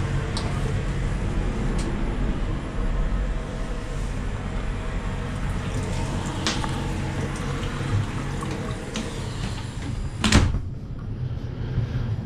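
Steady low rumble inside a double-deck passenger train carriage, with scattered small clicks and knocks, and a short, loud whoosh about ten seconds in.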